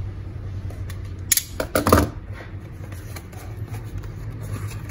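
Utility knife slicing through the seal stickers on a small cardboard box: a few sharp scraping cuts between about one and two seconds in, then quieter handling of the cardboard flap. A steady low hum runs underneath.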